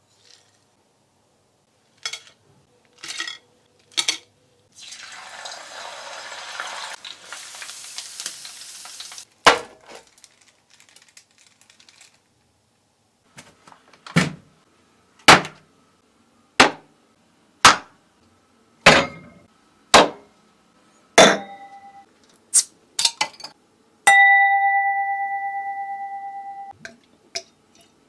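Kitchenware and glassware sounds: a few clicks, a hiss lasting a few seconds, then a string of separate sharp knocks and clinks about a second apart, ending in a ringing ding that fades over about three seconds.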